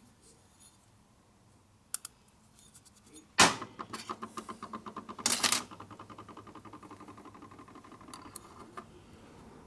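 Used piston rings being handled on a steel workbench: a sharp metallic clank about three and a half seconds in and another about two seconds later, then a run of quick ringing metal ticks that lasts several seconds, like a ring rattling against the steel.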